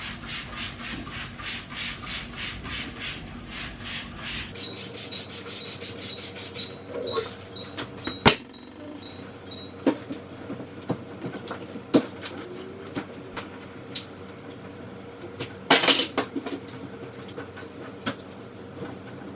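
Cloth scrubbing the inside of a fridge with a vinegar cleaner, in quick back-and-forth strokes about two or three a second, for the first several seconds. After that come scattered knocks and clicks of items and shelves being handled, with a louder scraping burst near the end.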